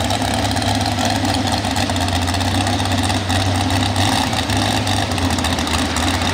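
Square-body Chevrolet pulling truck's engine idling steadily while hooked to the sled, a constant low drone with no revving.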